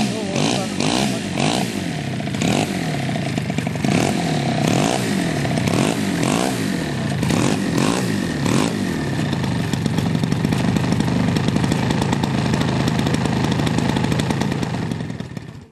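Engine of a large radio-controlled Curtiss Jenny model biplane running as the model taxis on grass and comes to a stop, its pitch wavering up and down.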